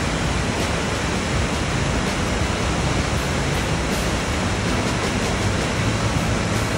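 Greeter Falls' waterfall pouring into its plunge pool: a loud, steady, even rush of falling water.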